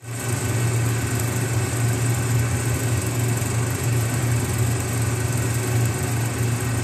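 Steady, engine-like low hum with a hiss over it, the sound bed of an animated title intro; it starts suddenly and stops just before the end.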